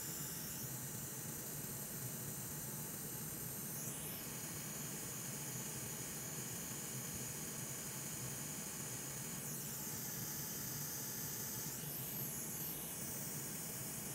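Hot air rework station blowing a steady hiss of air while reflowing a reballed BGA chip onto a laptop motherboard. The upper part of the hiss shifts in tone a few times as the nozzle moves.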